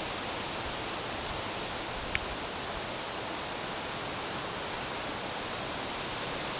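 Steady, even outdoor background hiss, with one brief faint high tick about two seconds in.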